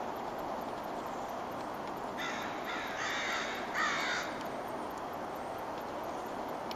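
Three harsh, raspy bird calls in quick succession about two seconds in, over a steady background hiss.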